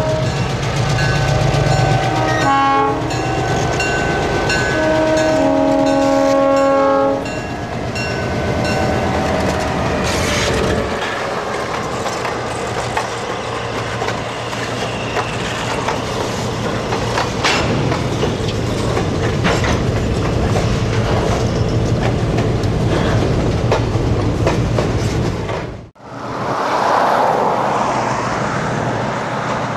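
Diesel switcher locomotive's multi-note air horn sounding several blasts, the last one held for about four seconds. Then the train rolls past with engine rumble and wheels clicking over rail joints. Near the end the sound breaks off abruptly and resumes as another train rumble.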